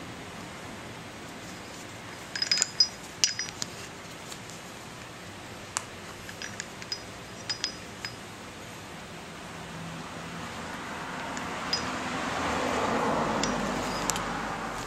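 Small metal parts of a homebuilt trike half shaft's CV joint clinking as they are handled: sharp light clinks with a short high ring, in a cluster a couple of seconds in and another about six to eight seconds in, then a soft swell of rushing noise near the end.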